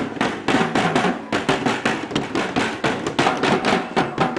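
Yellow plastic jerry cans beaten with wooden sticks as makeshift drums, a fast steady rhythm of hollow strikes several times a second.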